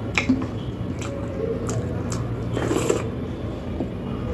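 Close-up wet eating sounds: fingers squishing makki roti into kadhi on a steel plate, with chewing and a few short clicks, over a steady low hum.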